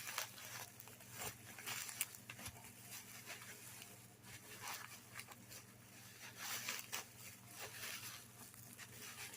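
Faint, irregular rustling and crinkling of packing material being handled and unwrapped, over a low steady hum.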